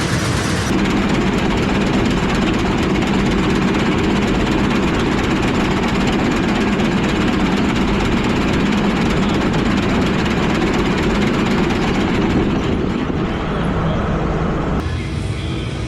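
Combine harvester engine running steadily with a low hum. The sound changes abruptly about a second in and again near the end.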